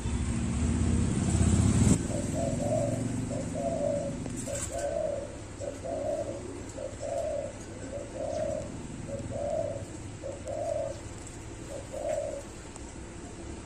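Caged dove cooing in a steady run of about a dozen short, even coos, roughly one a second, the cooing of a dove in peak breeding drive. A low rumble is loudest at first and stops about two seconds in.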